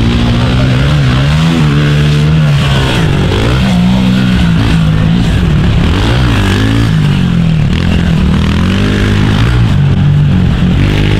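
Pit bike engines revving on a dirt track, their pitch rising and falling again and again with the throttle.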